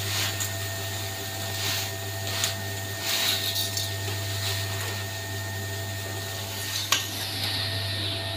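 Livestock-feed mixer with a vertical screw auger running on test with a steady motor hum, while feed is tipped from a sack into its hopper, giving several short bursts of rustling and pouring. A sharp click about seven seconds in.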